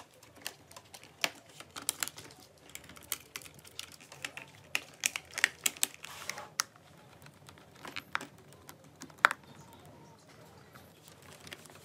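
Keys of a white MacBook's keyboard clicking irregularly as someone types, the taps bunching together in the middle. Later the clicks thin out to a few scattered ones, the sharpest about nine seconds in.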